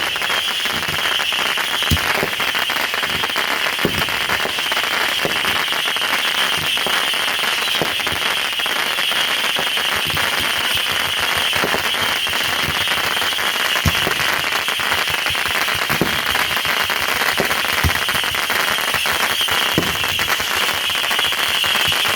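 Backyard consumer fireworks going off nonstop: a dense, continuous crackling, with louder single bangs every few seconds.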